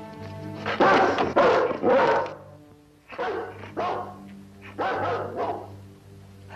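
A dog barking about six times, in two runs of three, over background music with held notes.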